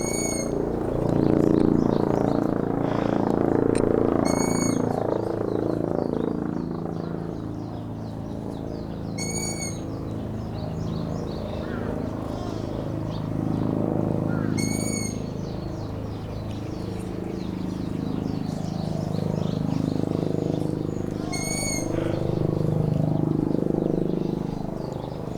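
Long-eared owl giving five short, high calls about every five seconds, over loud emergency-vehicle sirens that wail, rising and falling.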